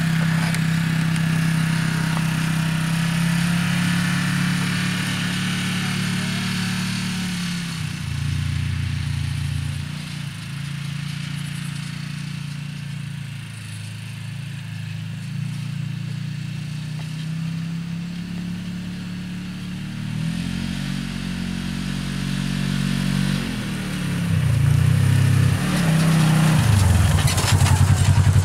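Polaris RZR 800 side-by-side's twin-cylinder engine running as it is driven. Its pitch falls and rises with the throttle, and it grows louder near the end as the machine comes close. The engine has just been rebuilt with new piston rings and is being run gently to break it in.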